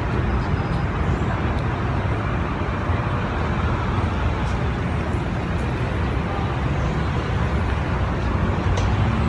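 Steady city traffic noise, a continuous rumble of passing vehicles with no distinct events.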